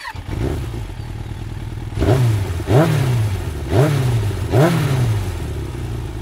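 Motorcycle engine idling, then blipped four times in quick succession, its pitch jumping up sharply with each throttle blip and sinking back to idle.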